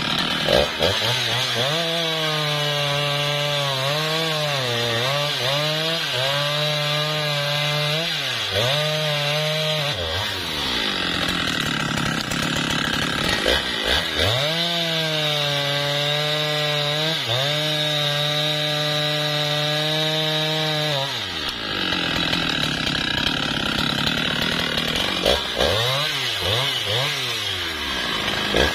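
Husqvarna 395XP two-stroke chainsaw held at full throttle through two long cuts into a teak log, its pitch dropping back between the cuts. Near the end the throttle is blipped a few times in quick succession.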